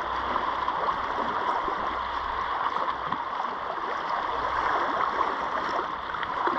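Steady wash of sea water swirling and fizzing over the rocks, with a low rumble underneath in the first part.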